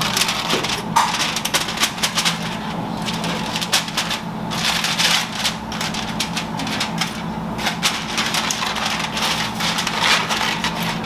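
Aluminium foil crinkling and crackling in many quick rustles as a foil pouch is cut and peeled open.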